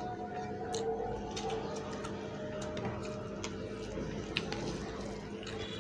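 Fingers squishing and mixing rice and fish curry by hand on a plate, with scattered small wet clicks and squelches over a faint steady hum.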